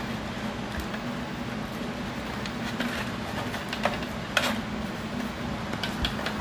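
Light clicks and rustles of a plastic 120 mm PC case fan and its braided cables being handled, over a steady background hum. The clicks come a few at a time from about halfway through.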